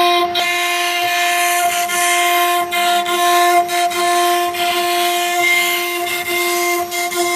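CNC router spindle running with a steady high whine over a continuous gritty hiss, as the bit engraves glass.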